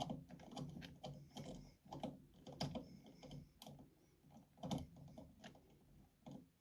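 Faint, irregular small clicks and taps of hands handling wires and connecting them to the controller's pins.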